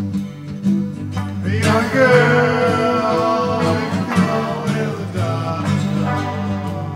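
Instrumental passage of a rock song: a full band with guitar, and a lead line that slides up about a second and a half in and then holds.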